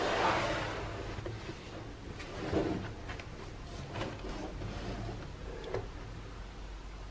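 Gloved hands handling a cardboard shoebox. A soft sliding rush comes as the box is brought in, then light scrapes and knocks of the cardboard as it is turned over, the loudest about two and a half seconds in, over a steady low hum.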